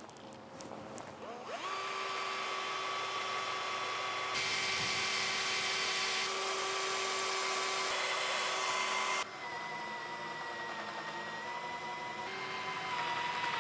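Cordless drill running almost without a break, a steady motor whine starting about a second and a half in. It grows louder and harsher from about four to nine seconds in, then drops slightly in level and pitch and picks up again near the end.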